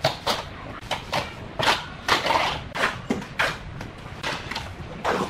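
Steel trowel slapping and scraping wet cement mortar onto a concrete countertop: irregular short strokes, roughly two a second, with one longer scrape about two seconds in.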